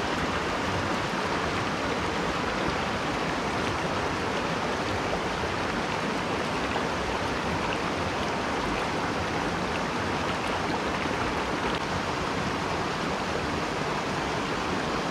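Mountain headwater stream running over rocks and a small cascade into a pool: a steady rushing of water that holds even throughout.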